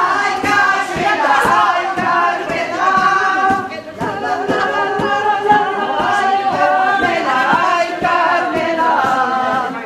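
A group of voices singing a song together, unaccompanied.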